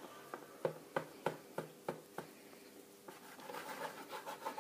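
Small serrated knife sawing through a soft sponge cake: a run of short, faint rasping strokes, about three a second, then softer scraping near the end.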